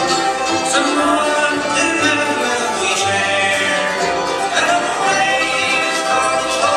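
Live bluegrass band playing: banjo, mandolin, acoustic guitar and upright bass picking together at a steady tempo.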